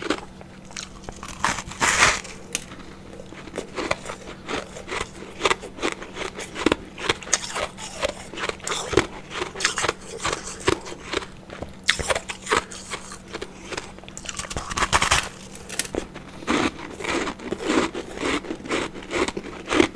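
Ice being bitten and chewed: an irregular run of sharp crunches and crackles, some much louder than others, over a faint steady hum.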